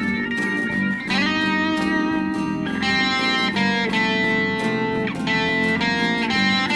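Instrumental break of a Hindi pop song: an electric guitar plays a lead melody over a steady beat, with held notes shifting about a second in and again near three seconds.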